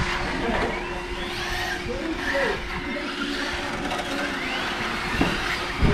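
Electric RC touring cars running on a wet track, their motors whining up and down in pitch as they speed up and slow down.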